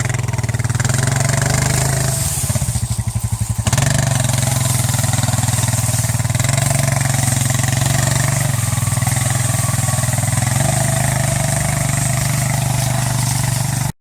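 A vehicle engine running at a steady low speed, dipping briefly about two to four seconds in and then picking up again.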